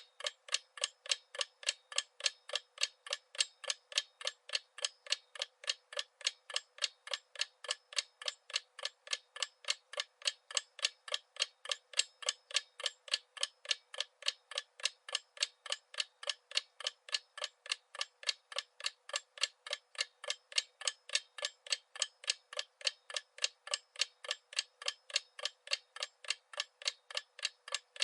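Clock tick-tock sound effect: a steady, even ticking of about three ticks a second, crisp and without any low end.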